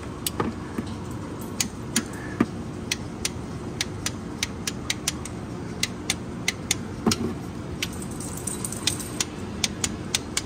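Hand ratchet clicking in short, uneven runs as it turns a socket on a long extension, snugging down the bolts of a new water pump, over a steady low hum.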